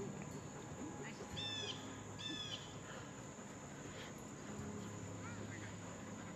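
A bird calling twice, short arched calls about a second apart, with a few fainter chirps later, over a low steady background hum.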